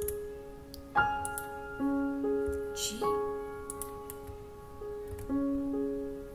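Background music on piano: slow, gentle single notes, each struck and left to fade, with a few faint clicks over it.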